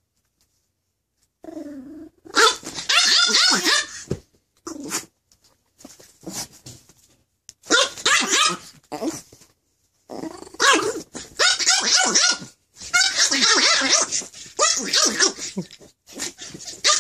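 A tiny three-pound chihuahua growling and snarling in long, rapid bursts, mixed with sharp barks, as it lunges at a hand. The bursts start about a second and a half in and come in runs of a few seconds, with short pauses between.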